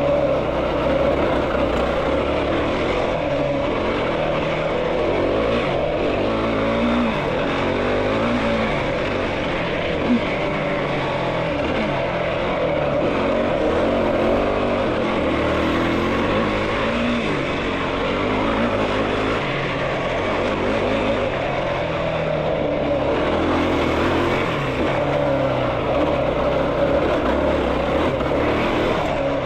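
Yamaha YFZ450R quad's single-cylinder four-stroke engine running as the quad is ridden, its revs rising and falling.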